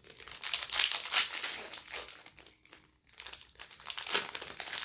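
Crinkling and crumpling of a hockey card pack's wrapper as it is handled and opened, densest in the first two seconds and then in scattered crackles.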